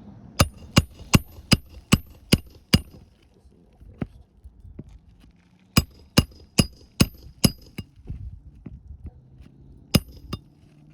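Hammer driving a roofing nail into an asphalt shingle, struck with a ringing metal clink: a run of seven blows about 2.5 a second, a second run of about six blows, then one more blow near the end.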